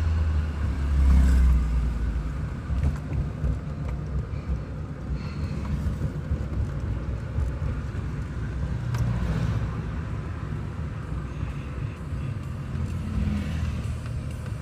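Road and engine rumble heard inside a moving car's cabin: a steady low drone that swells briefly about a second in.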